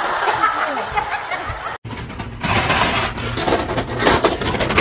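A person laughing and chuckling, cut off abruptly a little under two seconds in. Then a noisier recording with a steady low rumble and voices.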